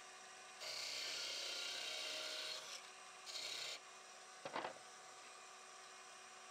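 A turning tool scraping the spinning golden cypress on a wood lathe in two hissing passes, a longer one and then a short one, followed by a single short knock about halfway through. A faint steady lathe hum runs underneath.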